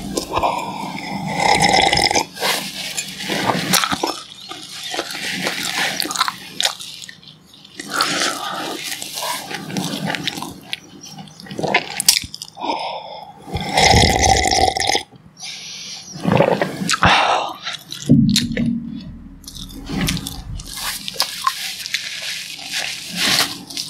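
Close-miked sips and swallows of tea from a mug, repeated in a string of separate drinking sounds. Near the end comes a nose-blow into a tissue, from a head cold.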